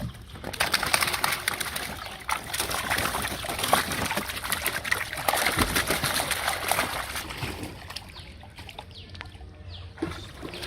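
Water splashing and sloshing in a rapid jumble of short splatters, busiest for the first seven seconds or so, then dying down to a few scattered splashes.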